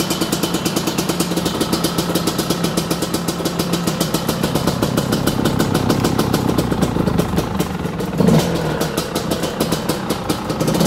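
2003 GasGas EC 125 two-stroke dirt bike engine idling with a rapid, uneven burble, with one short throttle blip about eight seconds in.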